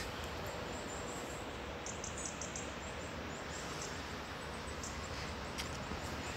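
Steady ambient background noise with a low rumble, and a few faint, short, high bird chirps about two seconds in.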